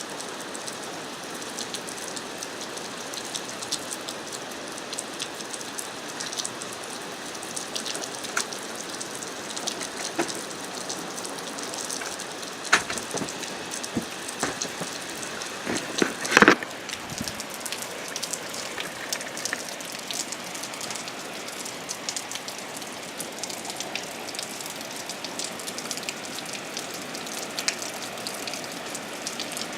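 Heavy rain falling steadily, with many sharp individual drops ticking on a hard surface. A few louder splats come about 13 and 16 seconds in.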